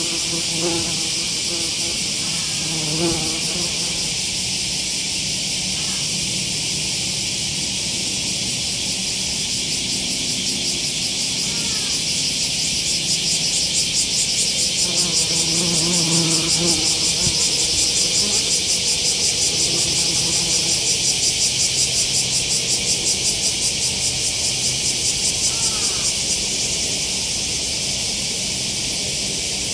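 Cicadas singing: a steady high hiss, with a pulsing song, a few pulses a second, that swells about twelve seconds in and stops near the end. A sand wasp's low wing buzz comes and goes near the start and again about halfway.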